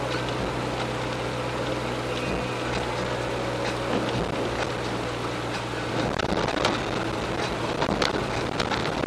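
Peugeot 405 being driven: a steady engine hum under a constant hiss, with scattered short knocks from about six seconds in.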